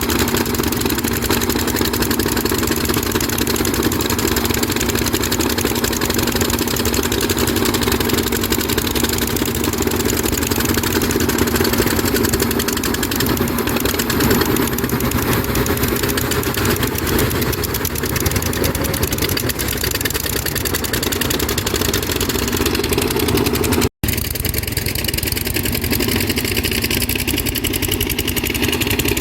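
Kobelco SK200 excavator's diesel engine running steadily under work, with a brief full cutout about three-quarters of the way through.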